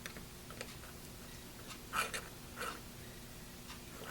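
Faint handling noises as a wire is fed into place beside a model railroad rail: a few light clicks and two brief scrapes, the first about two seconds in and the second about half a second later.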